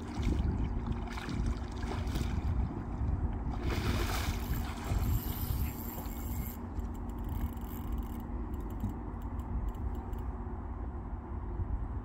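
A hooked carp splashing and swirling at the surface close to the bank, with the loudest splash about four seconds in, over a steady low rumble.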